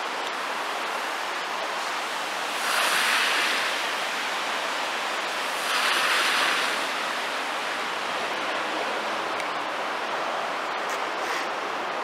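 Steady outdoor hiss of road traffic, with two vehicles passing on a wet road, each swelling and fading over about a second, roughly three seconds apart.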